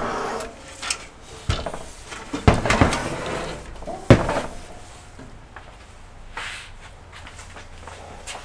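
Knocks and scrapes of a PC tower case being handled and turned around on a desk, with sharp knocks about one and a half, two and a half and four seconds in, the last the loudest. Softer handling noise follows.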